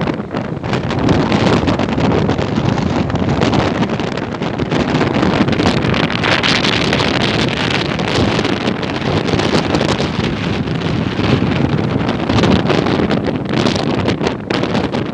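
Strong wind at the sea buffeting the microphone, loud and gusting.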